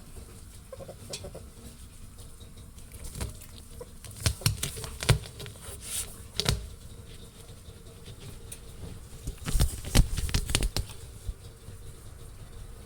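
A ferret scrabbling and rummaging inside a washing machine drum: steady rustling with two clusters of sharp knocks and bumps, one in the middle and one near the end.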